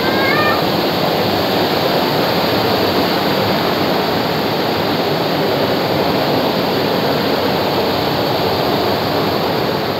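Artificial waterfall's falling water rushing loudly and steadily, heard from close beneath the falls.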